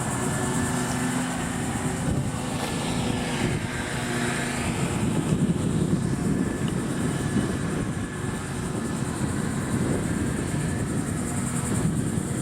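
A distant engine drones steadily. Its hum gives way to a rougher low rumble for a few seconds in the middle and comes back near the end.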